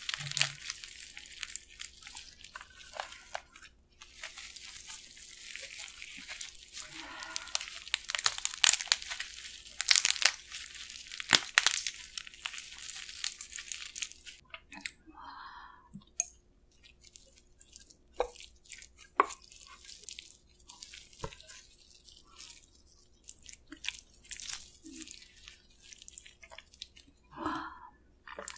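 Gloved hands squeezing and breaking apart pieces of spicy marinated raw crab, with crab shell crackling and sticky sauce squelching. The crackling is dense at first and thins to scattered clicks and small squishes about halfway through.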